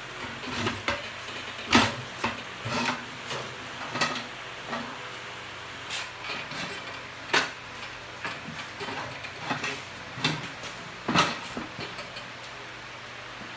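Irregular clatter and knocks of hard objects being handled and set down, about a dozen separate hits, the loudest a little under 2 s, about 7 s and about 11 s in.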